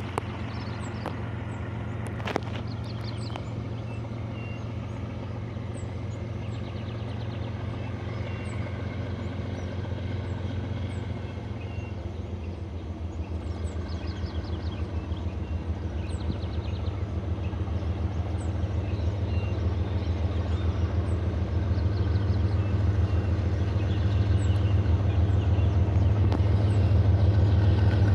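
Diesel engines of an approaching pair of GE freight locomotives, an ES44ACi and an AC44i: a low steady drone that grows gradually louder through the second half.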